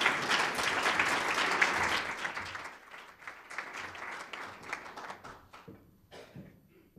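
Audience applause, full for the first two seconds or so, then thinning to scattered claps and dying away near the end.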